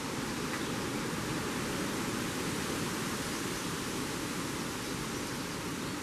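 Strong tropical-storm wind rushing through the leaves of a stand of trees, a steady rushing noise with no let-up.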